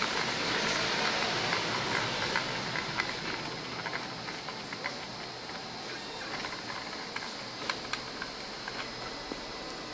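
Small homemade CNC machine running: a steady motor hiss and whir with scattered small clicks and ticks, a little louder in the first few seconds.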